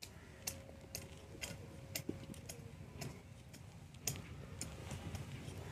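Faint, scattered clicks and knocks of small taro corms being picked by hand out of a plastic basin and set down on a pile on the ground.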